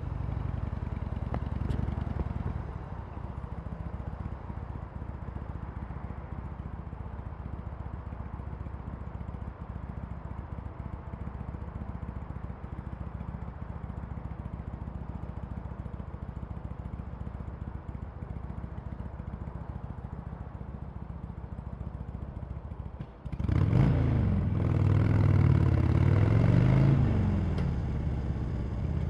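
Harley-Davidson Sportster Iron 883's air-cooled V-twin with its stock exhaust, running at a steady low idle. About 23 seconds in the revs jump sharply and the engine gets much louder, the pitch climbing and falling a couple of times before settling back to a steady run near the end.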